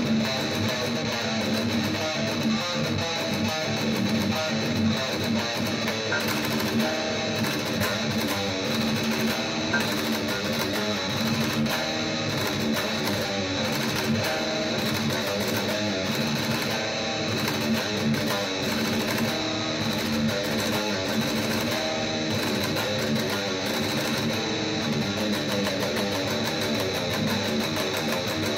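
Electric guitar played continuously, a dense stream of notes under a busy fretting hand, with a steady high tone running underneath.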